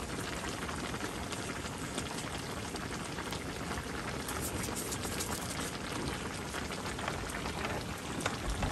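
Curry bubbling steadily in a wok over a wood fire: a constant hiss dotted with small pops and crackles.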